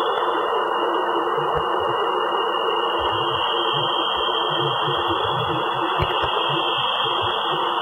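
Voyager 1 Plasma Wave Subsystem recording of Saturn's magnetosphere played as sound: a steady radio-like hiss with a high whistling tone running over it. Scattered faint low thumps sit underneath, which the uploader puts down to the spacecraft's motor and thruster activity.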